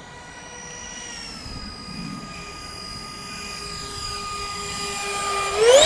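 The twin 70mm electric ducted fans of an RC Boeing 737 MAX-8 model airliner whining in flight. The pitch falls about a second in and holds steady, then jumps up sharply near the end as the sound gets louder.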